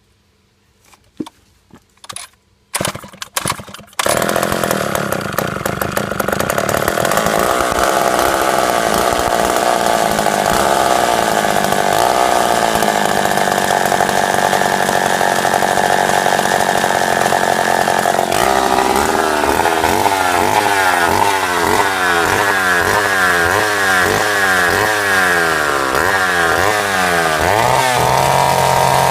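Vintage 1960s Sears two-stroke chainsaw: a few short knocks and sputters, then the engine catches about four seconds in and runs at high speed. Later its speed surges up and down over and over, and near the end it drops to a steady idle.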